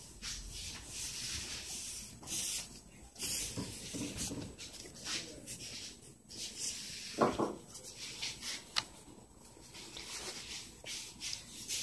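Sheets of paper and paper cutouts rustling and rubbing as they are slid and shuffled by hand, in irregular scrapes. A brief pitched sound about seven seconds in.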